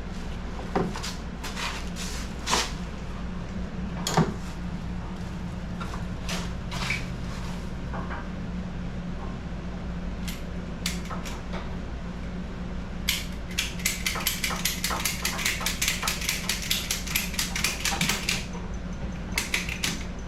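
Metal hooks and strap hardware clinking and knocking as a three-hook ratchet strap is fitted, then about five seconds of fast, regular clicking from the strap's ratchet being worked to tighten it. A steady low hum runs underneath.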